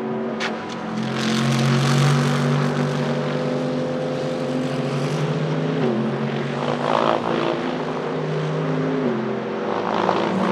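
Mercedes-AMG GT3 Evo race car's naturally aspirated V8 at high revs, accelerating past and away, with the pitch dropping at upshifts about six and nine seconds in. A few sharp cracks sound just after the start.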